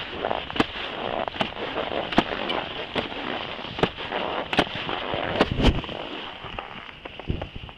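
Skis scraping over packed, tracked snow on a descent: a steady hiss broken by irregular sharp clicks and knocks, with jacket fabric rubbing over the microphone. The heaviest knock, with a low thump, comes about five and a half seconds in.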